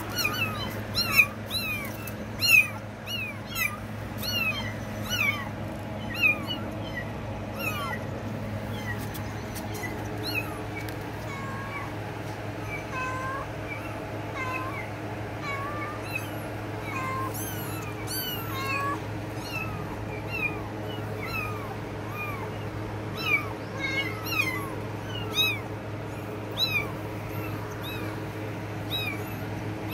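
Kittens mewing over and over in short, high-pitched calls, several a second, most crowded in the first ten seconds and again a little before the end. A steady low hum runs underneath.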